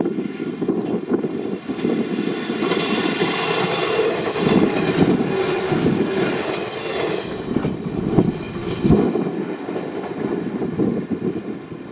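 Electric commuter train on the Ryomo Line running past, loudest from about three to seven seconds in, with a few knocks near the end. Strong gusty wind buffets the microphone throughout.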